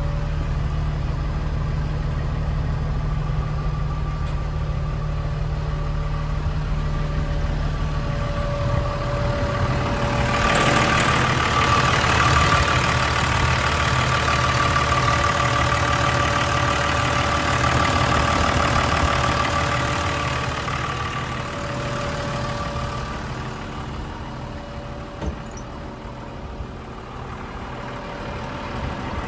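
Perkins diesel engine of a Hyster H12.00XM forklift idling steadily. It is louder and hissier for about ten seconds in the middle, near the open engine bay, and quieter near the end.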